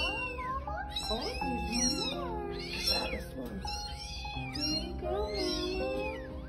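Cats mewing over and over, short high calls that rise and fall, about ten of them, over soft background music with long held notes.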